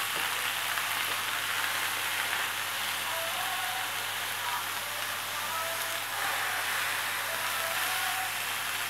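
Fish fillets frying in hot oil in a frying pan: a steady sizzle.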